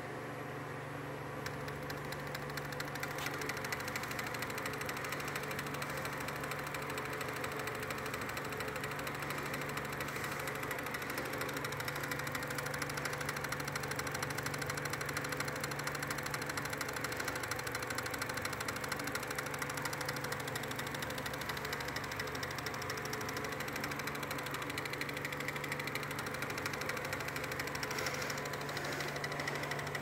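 Homemade pulse motor running: a magnet-fitted fidget-spinner rotor spins fast while a homemade mechanical reed switch clicks rapidly as it pulses the coil, making a steady, fast clicking buzz over a low hum. It grows louder over the first few seconds, then holds steady.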